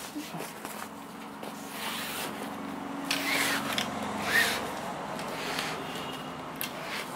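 Cloth fishing-rod sleeve rubbing and rustling as it is slid along the rod, with crinkling of the plastic wrapping on the rod tip. There are sharper scrapes throughout, and the loudest comes a little after halfway.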